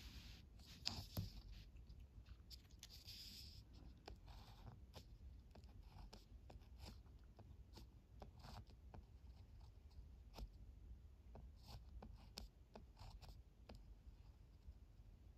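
Ballpoint pen writing a kanji on paper: faint short scratches and light taps of the tip, one for each stroke.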